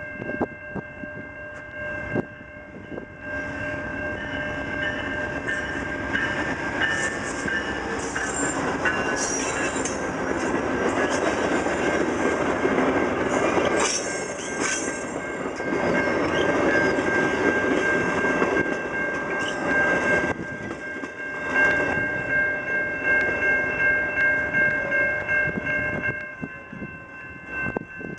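VIA Rail diesel-hauled passenger train approaching and passing close by, its noise building to a loud rush as the cars go past. Near the end the wheels clatter in an even rhythm over the rail joints.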